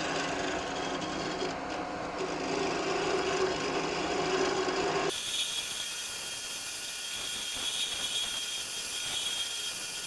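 Wood lathe running while a hand turning tool scrapes along the spinning wooden blank, the tool sliding on a tool rest freshly rubbed with wax paper. About five seconds in the sound changes abruptly: the low motor hum drops away and a higher, hissy scraping with a steady whine takes over.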